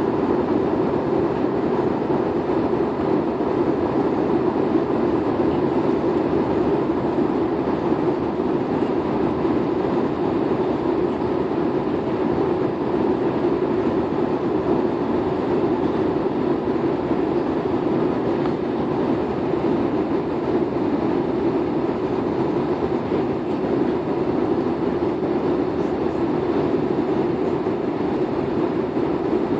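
Steady cabin noise inside an airliner in flight: a constant low rushing of engines and airflow, with no changes in level.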